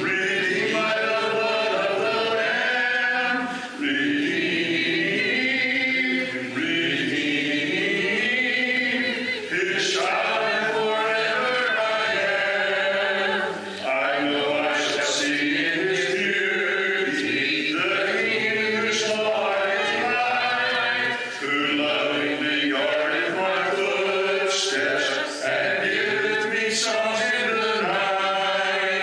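Church congregation singing a hymn a cappella, many voices together, in phrases with short breaths between them.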